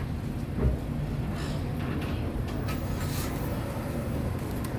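Steady low rumble of background street traffic, with a single soft thump a little over half a second in.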